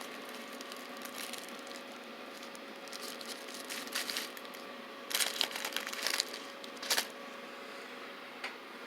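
Paper- and plastic-wrapped firecracker packs being handled, crinkling and rustling in several short bursts, the loudest in the second half. A faint steady hum runs underneath.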